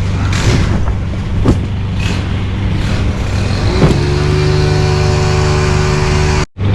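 An engine running steadily, with short rising sweeps about a second and a half in and again near four seconds. It cuts off abruptly just before the end.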